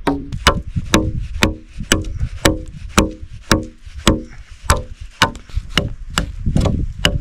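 Steady chopping at about two strokes a second, each stroke a sharp knock on wood with a short ring after it.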